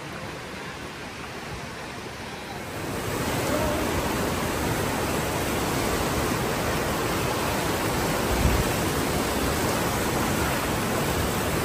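Fast mountain creek rushing and churning through a narrow rock canyon, a steady roar of water that grows much louder about three seconds in.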